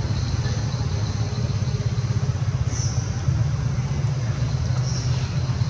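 A steady low engine rumble, like a motor vehicle running nearby, with a few short high chirps over it.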